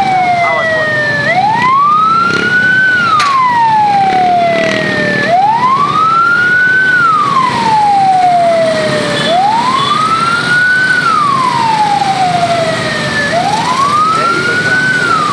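Siren wailing in a slow, regular cycle, each sweep rising quickly in pitch and falling slowly, about once every four seconds. Steady road noise runs beneath it.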